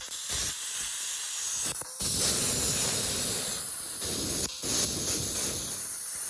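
Plasma cutter hissing steadily as its arc cuts through steel plate, briefly dropping out twice.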